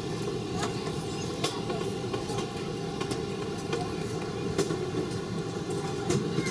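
Airliner cabin noise while the aircraft is taxiing: a steady low rumble with scattered light knocks.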